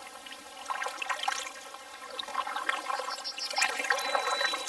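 Kayak paddle strokes: water splashing off the blades and trickling back into the canal, swelling about a second in and again near the end.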